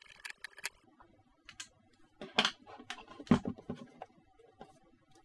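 Handling clicks and knocks from the Beoplay A2 speaker's housing and parts as it is taken apart: a scatter of sharp taps, with the loudest knock about three seconds in.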